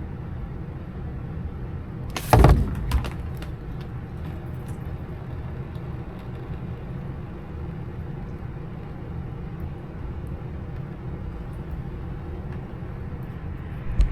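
A steady low machine hum, with a loud knock and a short clatter about two seconds in.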